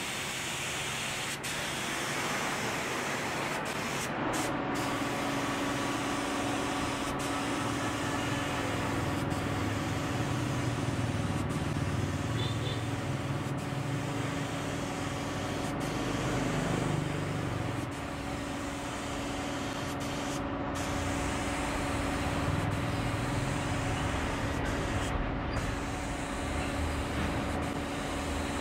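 Compressed-air spray gun hissing as wood finish is sprayed. About four seconds in, an air compressor motor starts and runs on with a steady hum and low rumble under the hiss.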